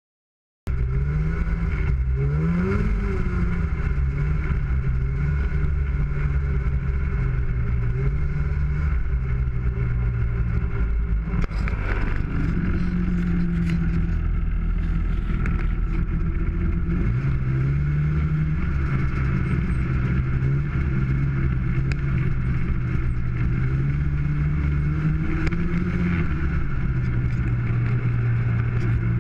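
1995 Polaris Indy 500 snowmobile's two-stroke twin engine running under way, its pitch rising and falling again and again as the throttle is worked. It cuts in abruptly just under a second in.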